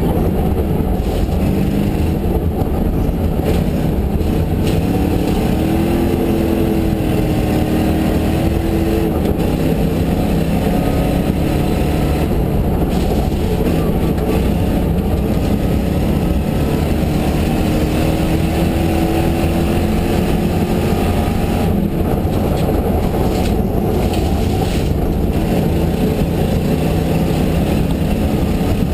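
Ford Mustang GTS rally car's V8 engine running hard at speed, heard from inside the cabin over loud road and tyre noise on a snowy gravel stage. The engine note rises and falls several times with throttle and gear changes.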